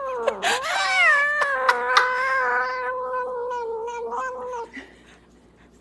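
A domestic cat giving one long, drawn-out yowl that dips in pitch near the start, then holds a fairly level pitch and fades out about three-quarters of the way through.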